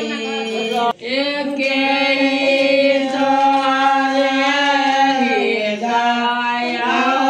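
Women singing a devotional folk song to the mother goddess (devi geet) as part of a wedding ritual, in long drawn-out notes. The singing breaks off briefly about a second in, then holds one note for several seconds before stepping down in pitch.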